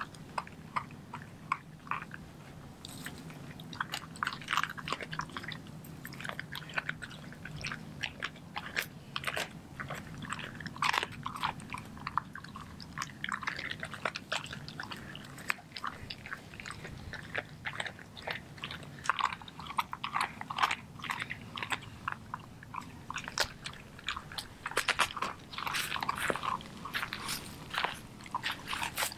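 Doberman chewing and crunching a whole raw, feathered chicken: irregular wet bites and crunches, coming thickest near the end.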